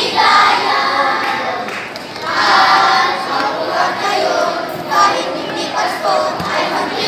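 A group of children singing a Christmas carol together, in sung phrases with short breaks between them.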